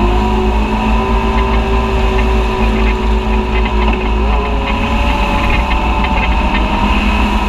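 Side-by-side UTV engine running steadily under way, heard from on board, with a strong low rumble and a slight rise in engine pitch about four seconds in.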